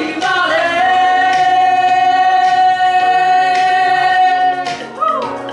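Vocal trio, a woman and two men, holding one long note together in harmony over a musical accompaniment with a steady beat; the held note ends about four and a half seconds in.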